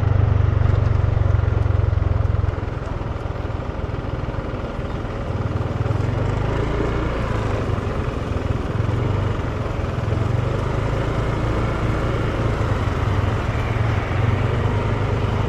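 Motor scooter's engine running steadily as it is ridden: a low hum under a rushing noise. It drops a little in level about two and a half seconds in.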